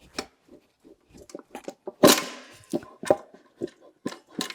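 A string of short knocks and clacks from a motorcycle tire and spoked wheel being handled on a tire changer, with one loud knock about two seconds in that rings on briefly.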